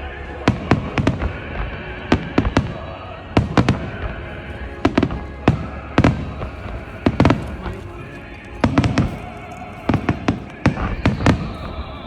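Aerial fireworks shells bursting: a rapid series of sharp bangs, often two or three close together, coming every second or so, with music playing underneath.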